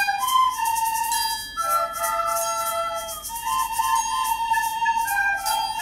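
A school ensemble of soprano recorders playing a melody in held notes, moving from note to note about once a second, with two parts sounding together at times.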